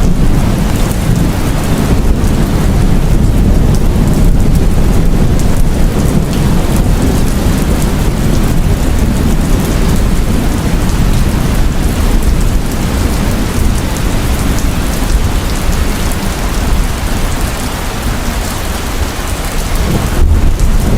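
Heavy rain pouring steadily, with a deep continuous rumble of thunder underneath that swells near the end.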